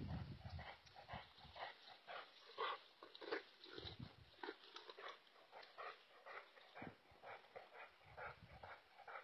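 A poisoned dog lying in grass and making faint, short, repeated sounds, about two to three a second.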